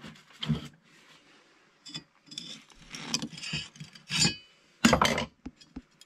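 Metal clinks, knocks and scrapes from a microwave oven transformer's steel mounting plate being worked loose from the transformer after its spot welds were drilled out. The knocks come irregularly, a rubbing cluster in the middle, with the loudest near the end.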